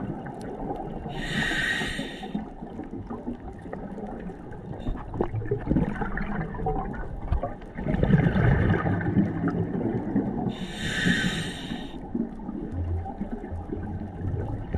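Scuba diver breathing through a regulator underwater: two hissing inhalations, about a second in and again near the end, with exhaled bubbles gurgling and rumbling between them, the loudest burst of bubbles about eight seconds in.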